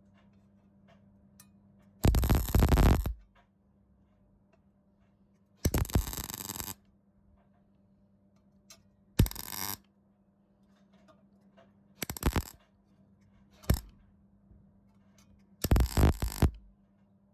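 MIG welder arc crackling in six short bursts of tack or stitch welding on thin car body steel, each lasting up to about a second, with a steady low hum in the pauses between. The welding is burning straight through the thin metal.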